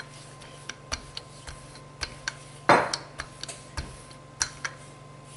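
Marble rolling pin with wooden handles rolling out pie dough on a granite countertop: irregular light clicks and knocks, about one or two a second, with one longer, louder swish a little before three seconds in.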